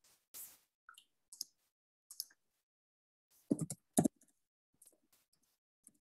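Computer keyboard keys and mouse buttons clicking sparsely, with a louder cluster of clicks near the middle.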